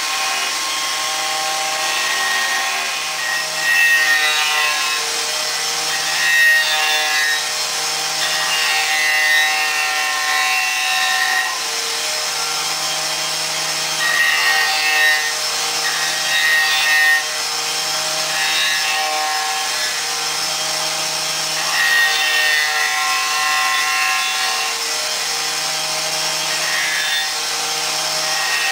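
Porter Spindle Carver running with a steady whine, its rotary cutter head rasping into a wooden axe-handle blank in repeated surges every few seconds as the wood is pressed against it and eased off.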